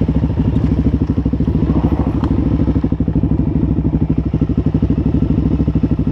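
Suzuki DR-Z400SM's single-cylinder four-stroke engine running steadily at low revs through an aftermarket MRD exhaust, an even rapid pulsing, with one light click about two seconds in.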